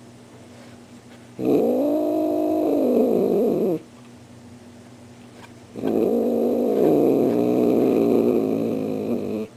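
Tortoiseshell cat giving two long, low warning growls, each wavering up and down in pitch; the first lasts a little over two seconds, the second, starting about six seconds in, nearly four.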